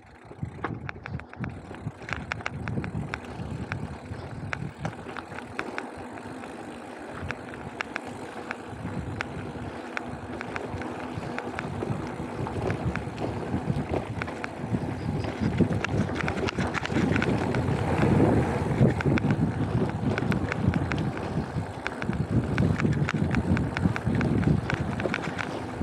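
Mountain bike rolling fast along a dirt singletrack: tyres on loose dirt and small stones, with a constant rattling and clicking from the bike and wind on the microphone. It gets louder in the second half.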